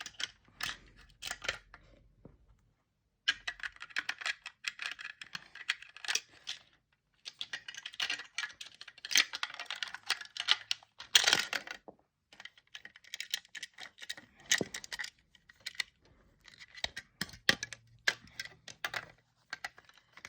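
Plastic LEGO pieces clicking and rattling as a minifigure and dinosaur are fitted into the set's vehicle cage. Runs of rapid small clicks with a couple of short pauses, loudest about eleven seconds in.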